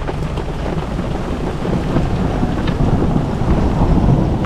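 Heavy rain and hail pelting a car's roof and windscreen, heard from inside the car as a dense, continuous patter of small impacts over a low rumble.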